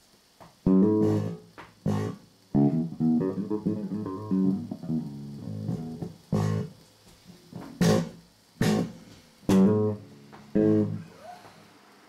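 Guitar played in short phrases: sharply struck notes and chords that ring out and fade, with brief gaps between them, starting a little under a second in and stopping shortly before the end.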